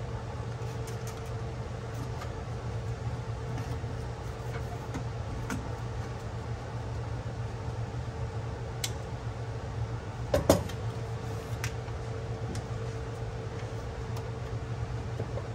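Steady low hum of shop background noise, with light clicks and taps as a car door panel and a sound-deadener sheet are handled, and one sharp knock about ten seconds in.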